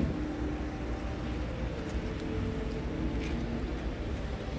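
Steady low rumble of the Scania R tractor unit's diesel engine idling.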